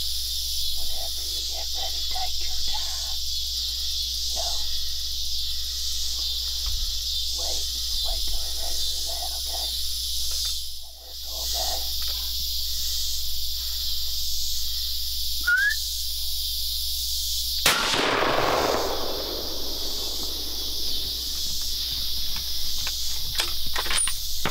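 Steady chorus of crickets and other insects at dusk. About 18 seconds in comes a single loud gunshot whose echo rolls away over a couple of seconds.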